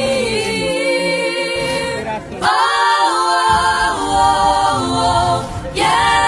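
A cappella singing: voices holding long notes with no clear words, moving to new notes about two and a half seconds in and again near the end.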